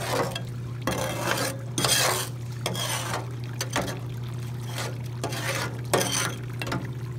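A metal hand scoop scraping and digging through wet sandy ore tailings in a metal hopper, in a run of irregular gritty scrapes. Under it runs the steady low hum of the shaker table.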